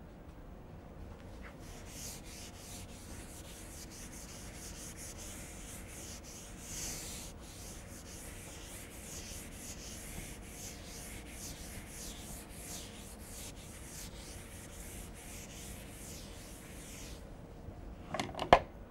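Blackboard eraser rubbing chalk off a chalkboard in many quick back-and-forth swishing strokes. The wiping stops shortly before the end, and a couple of short, louder sounds follow.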